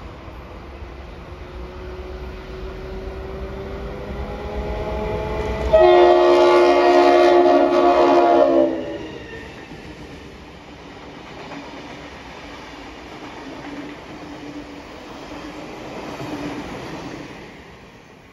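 A pair of vintage 42 class streamliner diesel locomotives (EMD 16-567C two-stroke V16 engines) run through at speed, growing louder as they approach. The horn sounds for about three seconds as they pass. Then the carriages roll by with wheel clatter, fading away near the end.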